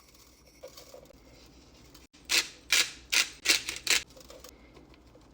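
Kitchen shears snipping through a raw chicken's backbone to spatchcock it: five short crunching cuts in quick succession, about half way through.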